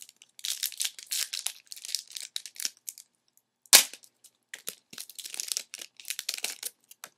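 Foil trading-card pack wrapper crinkling and tearing as it is opened, with one sharp snap about halfway through that is the loudest sound.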